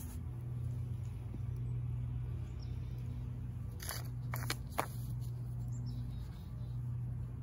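A steady low mechanical hum, with a few short sharp clicks or knocks close together around four to five seconds in.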